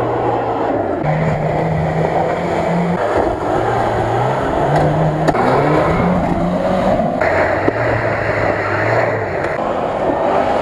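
Off-road 4x4 engines revving hard under load while driving through mud and dust, over a continuous rush of noise. The engine pitch jumps suddenly about a second in and again around seven seconds in, as one vehicle's sound gives way to another's.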